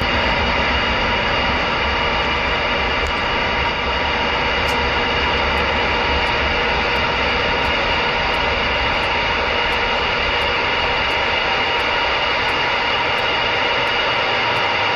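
CB radio receiver putting out steady static hiss between transmissions, with a few faint steady tones in the noise.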